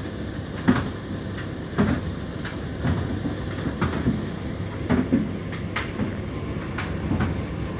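Indesit IDC8T3 condenser tumble dryer running mid-cycle: a steady hum from the turning drum, with a dull thud about once a second as the load tumbles over.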